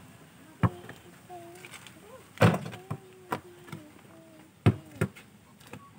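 A basketball striking hard, about five sharp knocks as it bounces on packed dirt and hits the backboard, the loudest about two and a half seconds in.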